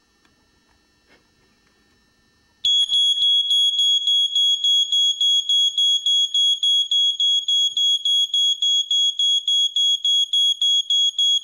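DETA 5230SCA ionization smoke alarm's piezo horn sounding on test. It starts about two and a half seconds in with a high, pretty loud tone pulsing about four times a second: the pulsating alarm pattern it gives when going off.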